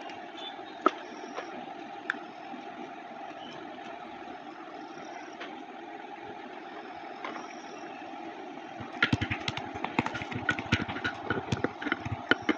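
Slime being handled over a steady background hum: a few scattered sharp clicks at first, then about three seconds of rapid wet clicks and pops near the end.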